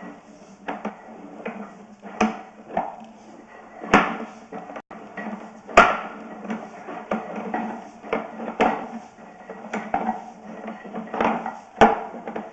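Sewer scope camera rig and its push cable being fed down a sewer line: irregular knocks and clatters, the loudest about six seconds in and again near the end.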